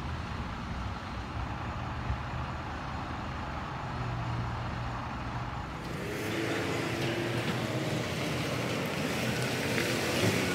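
Vehicle engine running with a low, steady hum at an emissions testing station. About six seconds in, the sound changes abruptly to a broad, steady hiss.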